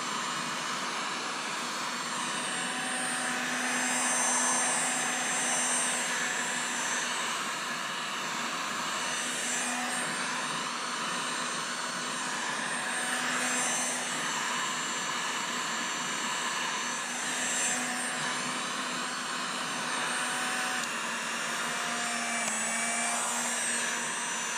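Heat gun running steadily: a blowing rush of air over a low motor hum, used to shrink heat-shrink tubing over a spliced extension cord.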